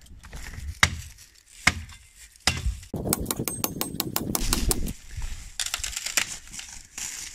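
Boots crunching on a gravelly trail, three steps a little under a second apart, then a couple of seconds of dense crunching and crackling in dry leaf litter, followed by sparser rustles and clicks as the walking goes on.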